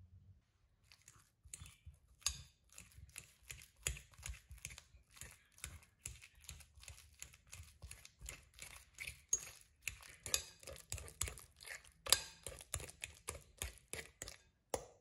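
A fork mashing ripe bananas in a glass bowl: quick repeated wet, squishy strokes with the tines clinking against the glass. The strokes start about a second in, with one sharper knock near the end.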